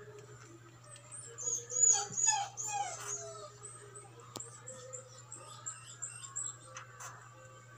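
A dog whimpering: a run of short, falling whines from about a second in to three seconds, then fainter ones, over a steady low electrical hum.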